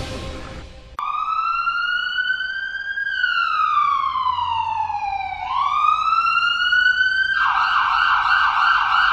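Electronic emergency-vehicle siren starting about a second in: a slow wail that rises, sinks and rises again, then switches near the end to a fast warbling yelp. It cuts off suddenly.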